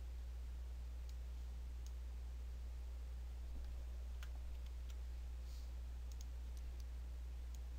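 Faint, scattered computer mouse clicks, about a dozen, over a steady low electrical hum on the recording.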